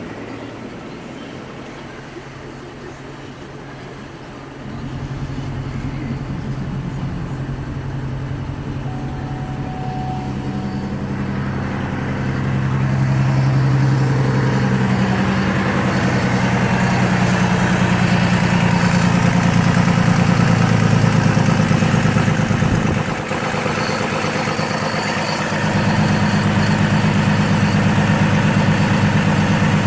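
GMC Envoy XL engine running just after start-up, its pitch and loudness stepping up and down a few times rather than holding steady: a rough idle, with a slight hesitation that the owner reckons is still there.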